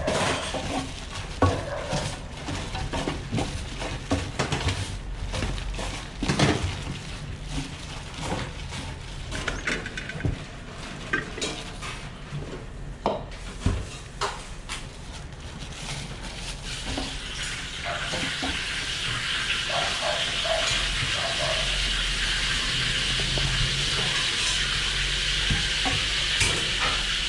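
Gloved hand dredging pieces of mahi mahi in dry flour in a stainless steel tray: irregular scraping and rustling, with sharp light knocks against the metal. About two-thirds of the way through, a steady high hiss builds and holds.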